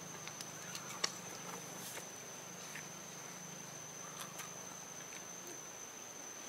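A steady high-pitched insect trill, with a few faint light clicks scattered through it.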